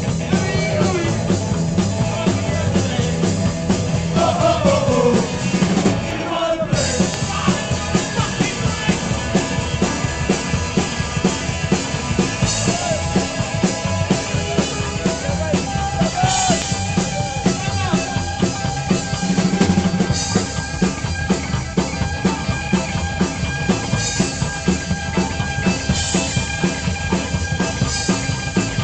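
Neo-rockabilly band playing live: electric guitar, upright double bass and drum kit keeping a steady beat, with singing.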